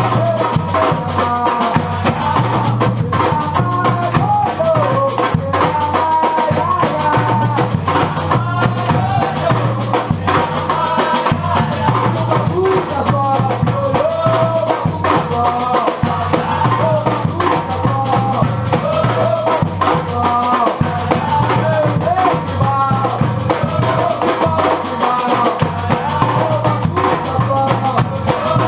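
Batucada percussion group playing a steady, driving drum rhythm, with deep bass drums repeating a pattern under many sharp strokes and a melody line above.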